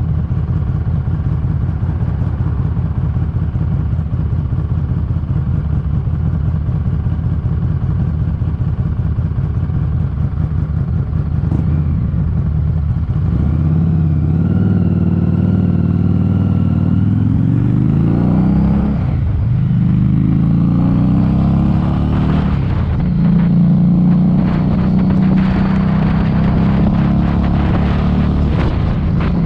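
Harley-Davidson Street 500's V-twin engine through an aftermarket TAB Performance exhaust, running steadily at low revs for about the first half. It then accelerates, its pitch rising and dropping back at each upshift several times through the gears.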